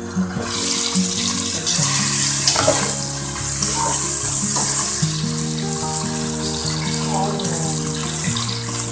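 Pork pieces frying in hot oil in a steel pot: a steady sizzle that swells about half a second in, as the lid comes off. Background music plays underneath.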